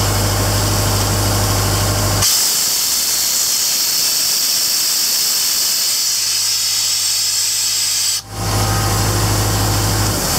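Loud steady hiss of compressed air venting from the air compressor, over the idle of its John Deere 4045 four-cylinder diesel. The engine's low hum drops out about two seconds in, leaving the hiss alone, and comes back near the end.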